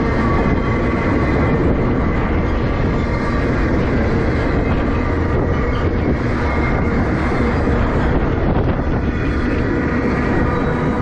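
Freight cars of a CN manifest train rolling past close by: a steady, loud rumble of steel wheels on the rails with faint clicks, and a thin steady squeal from the wheels.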